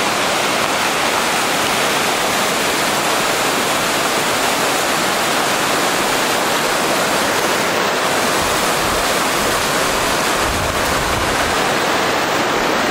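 Bear Creek, a mountain creek, rushing over rocks in a loud, steady roar of water.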